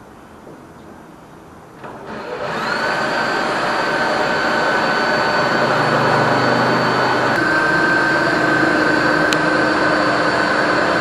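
A high-speed motor spins up about two seconds in, then runs with a steady whine. Its pitch shifts slightly near the end.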